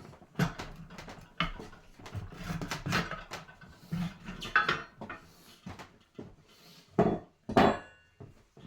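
Manual tire changer and its steel bar being worked to pry an old tire off the rim: irregular metal clanks and knocks. Two louder clanks come near the end, the second ringing briefly.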